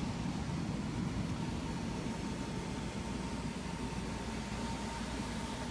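Steady mechanical drone of an attic air-conditioning unit running: a low hum with a faint, steady high whine.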